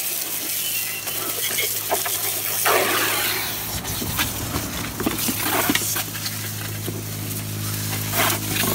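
Water from a hose splashing onto a motorcycle swing arm in a tub of soapy foam: a steady hiss with scattered knocks and clicks, louder for a moment about three seconds in.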